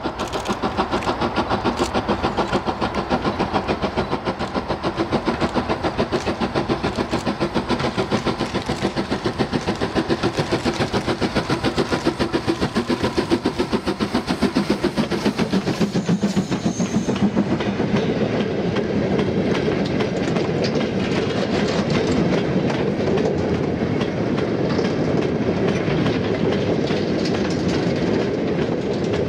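LMS Stanier Class 8F 2-8-0 steam locomotive hauling a heavy freight train, its exhaust beating rapidly as it approaches and passes. From about 18 seconds in, the sound turns to the steady rumble and clatter of the freight wagons rolling by.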